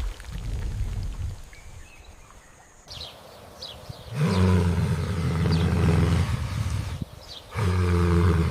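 A large animal's long, low, steady-pitched call about four seconds in, followed near the end by a second, shorter one. Small birds chirp briefly in the background.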